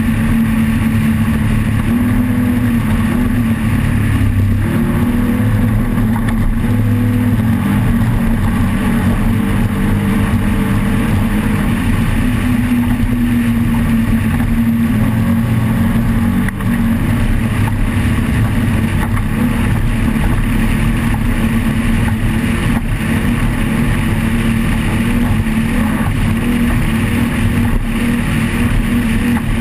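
Off-road race vehicle's engine running continuously, a loud steady drone that wavers slightly in pitch, with one brief dip in level about halfway through.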